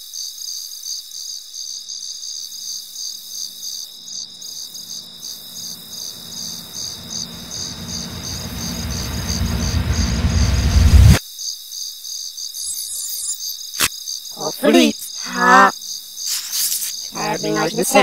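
Steady, rapidly pulsed cricket chirping from a cartoon soundtrack. A low swell builds for several seconds underneath and cuts off abruptly about eleven seconds in, and near the end warbling, wavering voice-like sounds come in.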